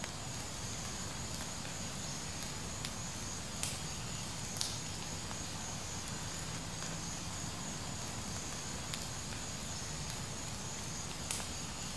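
Wood fire crackling: a steady hiss with a few scattered sharp pops.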